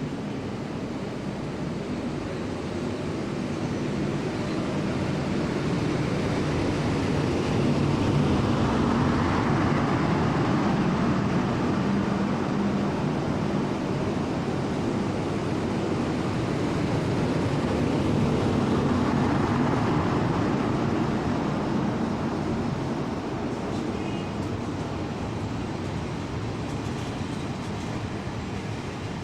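Taiwan Railway train running through the station: a steady rumble of wheels and motors that swells to its loudest over the first several seconds, holds for about ten seconds, then fades away.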